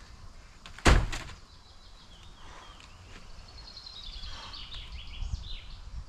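A single heavy sledgehammer blow against an old wooden shed about a second in, with a lighter knock right after. Then a songbird sings a falling trill.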